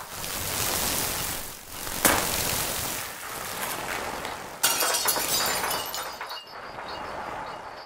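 Experimental noise-music collage: a dense rushing noise wash with a sharp crash-like hit about two seconds in. About halfway it switches abruptly to a crackling, glassy texture with faint high thin tones.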